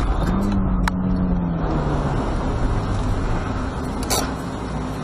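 A car is driving with steady road and engine noise. A low steady tone sounds for about two seconds from just after the start, falling slightly. There is a sharp click about a second in and a short noisy burst about four seconds in.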